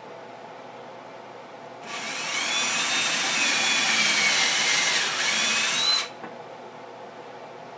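Hand-held power drill boring into a solid-wood guitar body, starting about two seconds in and running for about four seconds. Its whine falls in pitch, then rises again just before it stops suddenly.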